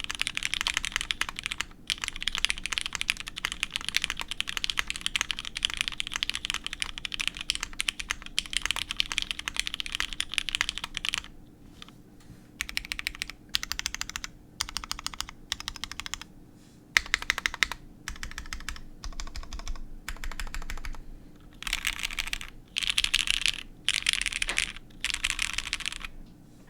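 Typing on a Kei 60% mechanical keyboard with lubed Cherry MX Hyperglide Black linear switches, an aluminium half plate and GMK keycaps. Steady fast typing runs for about the first eleven seconds, then comes in short bursts of keystrokes with brief pauses between them.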